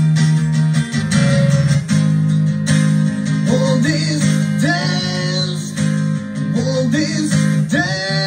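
A song playing back: strummed guitar, with a voice singing from about three and a half seconds in.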